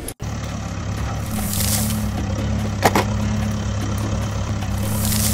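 Heavy diesel engine idling steadily, the engine sound laid over a toy excavator digging. Two hissing swells come in, one early and one near the end, and a sharp click falls about three seconds in.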